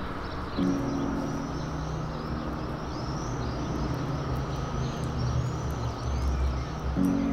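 Background music: held chords over a low bass, with faint high chirping sounds laid over it.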